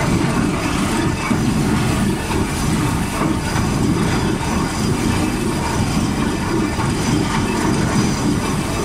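Drilling rig running under load: a steady, deep mechanical rumble with no pauses or changes.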